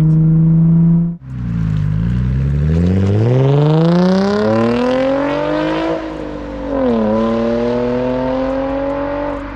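Nissan 350Z's naturally aspirated V6, fitted with a Tomei exhaust and an open cone intake filter. About a second of steady engine drone inside the cabin, then from the roadside the car accelerates hard under load past and away. The engine note climbs for several seconds, dips with upshifts around six to seven seconds in, then climbs again; it is loud.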